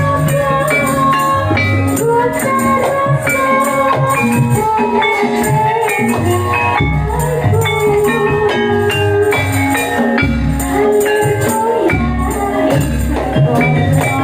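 Live gajah-gajahan folk band music: a jingling tambourine over drums and a pulsing bass, with a wavering melody line on top.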